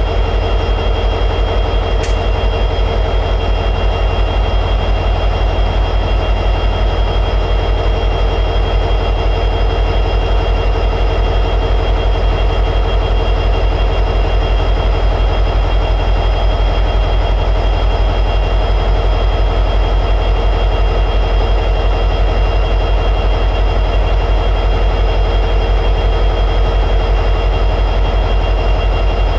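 EMD 710G3B two-stroke diesel prime mover of an SD60E locomotive running steadily at high idle: a dense low drone with a thin, steady high whine over it.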